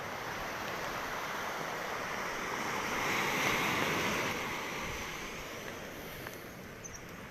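Rough storm surf washing onto the shore; one wave swells to a peak about three seconds in, then eases back.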